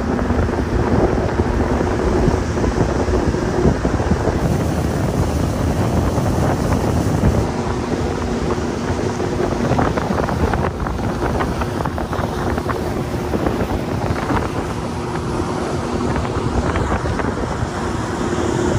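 Wind buffeting the microphone over the steady hum of a motorboat under way, with water rushing past the hull.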